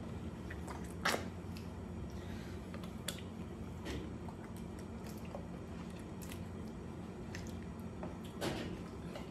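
Wet squelching and smacking of raw squid tubes being handled and pressed flat on a work table by hand, with a few short sharp wet smacks, the loudest about a second in and another near the end, over a steady low hum.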